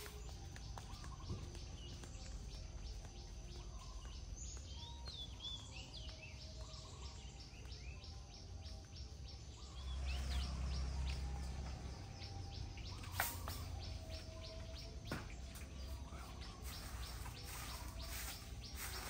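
Outdoor countryside ambience: a few short bird chirps about a quarter of the way in, over a steady, evenly pulsing insect chirp and a low rumble that swells about halfway through. A single sharp click about two-thirds of the way in.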